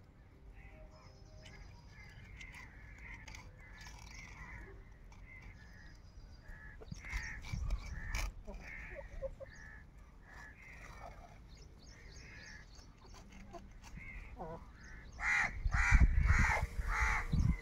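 Crows cawing repeatedly, with a quick run of about five loud caws near the end, and a few low thuds.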